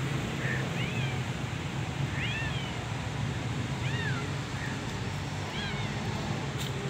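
Kitten meowing four times, short high calls that rise and fall in pitch, about one and a half seconds apart, over a steady low hum.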